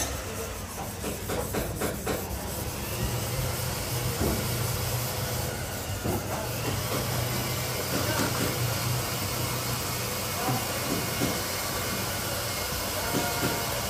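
Steady hiss over a low machine hum, the hum growing stronger about three seconds in.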